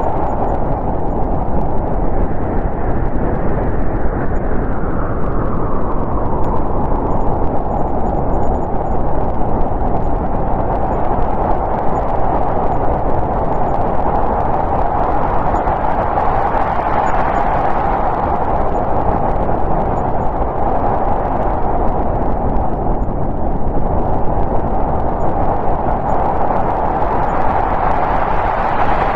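Snowstorm wind blowing hard and steadily, with slow gusts that swell and ease every ten seconds or so.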